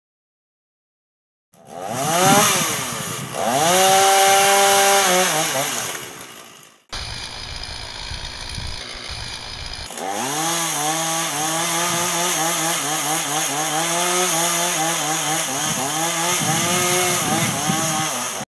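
Chainsaw starting about a second and a half in, revving up and held at high revs while cutting the spruce. It cuts off abruptly about seven seconds in, a quieter low rumble follows, and then the saw runs again at high revs with a wavering pitch until it stops suddenly near the end.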